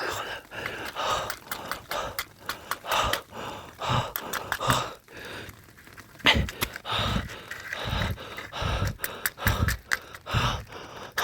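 A person gasping and panting heavily, in distress, with scattered sharp knocks and rustling of handling.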